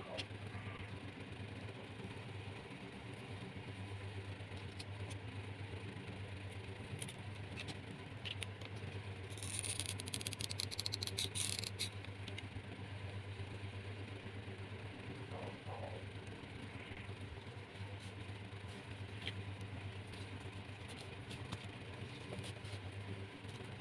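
Hands handling a jute-rope craft piece and gold tinsel trim: light scraping and small clicks, with a burst of crinkly rustling about ten seconds in. A steady low hum runs underneath.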